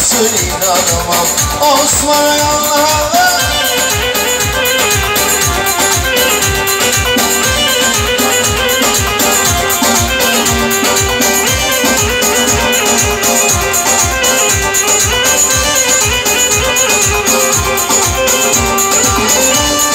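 Live wedding band playing Turkish dance music: a steady drum beat with shaker-like percussion under a wavering melody line, an instrumental passage between sung verses.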